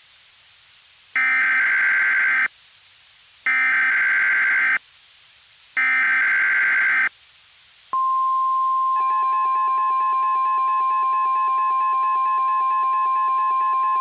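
Emergency Alert System data header: three short screeching digital bursts about a second apart. They are followed by the NOAA Weather Radio warning alarm tone, one steady high tone, joined about a second later by a rapidly pulsing buzz. Together they signal that a tornado warning is about to be broadcast.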